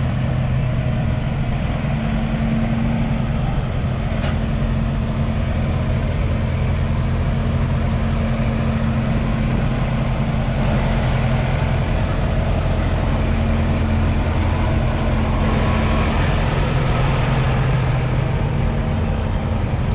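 Kubota M7-153 tractor's 6.1-litre four-cylinder diesel engine running steadily at an even pitch.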